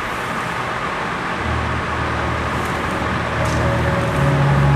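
Steady rushing air noise from the blower fan that keeps an inflatable planetarium dome up. A low, steady hum comes in about a second and a half in and gets stronger near the end.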